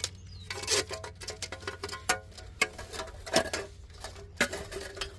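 Irregular clicks, ticks and light rustling of a new wheel hub assembly being handled, its uncoiled sensor wire being fed through the knuckle, with a steady low hum underneath.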